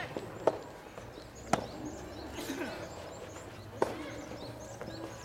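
Rackets striking a rubber soft-tennis ball during a doubles rally: three sharp hits, the second about a second after the first and the third about two seconds later, with faint shouts from players and spectators in between.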